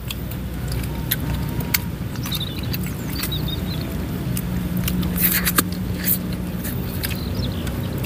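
Scattered sharp clicks and crunches of someone eating chicken wings, over a steady low motor hum that sounds like a vehicle engine running nearby.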